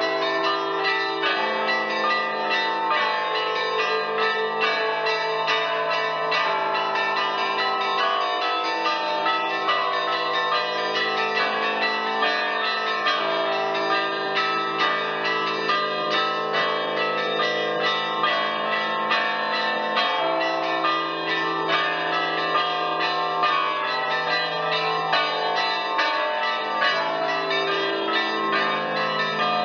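Church bells ringing continuously, many bells struck in quick, overlapping succession.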